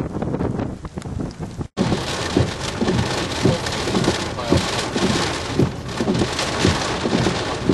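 Wind noise, then after a brief cut, heavy storm rain pelting a vehicle, with irregular thuds of drops striking it.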